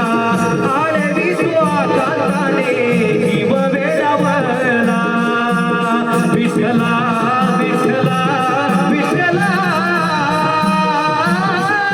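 Song from a Konkani Naman folk-theatre performance: a singer's voice wavering with vibrato over a steady, repeating drum rhythm.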